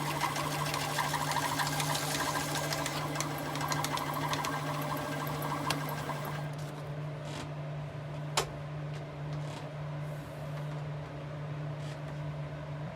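Metalworking machine tool running with a steady motor hum and a fast rattling cut for about six seconds, then running on more quietly with a few sharp clicks, one loud one about eight seconds in.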